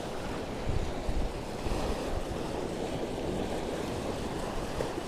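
Sea surf washing steadily on the shore, with wind gusting on the microphone as low rumbles.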